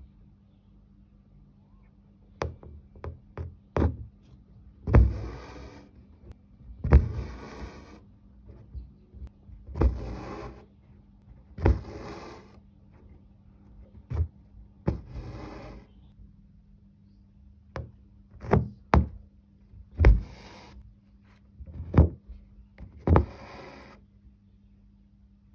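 Hand-embroidery satin stitching on thin canvas: the needle pops through the fabric with sharp taps, and cotton floss is drawn through in repeated rasping pulls of under a second each, over a faint steady low hum.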